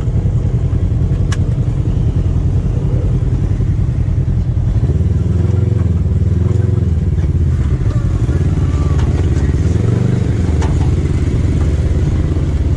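Off-road vehicle engine running close by at low revs, a steady low note, with its pitch shifting up and down a little from about five seconds in.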